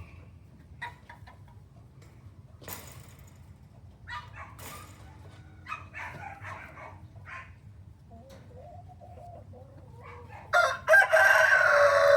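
Aseel rooster crowing once near the end, a loud call that drops in pitch as it trails off, with scattered soft clucks and calls before it.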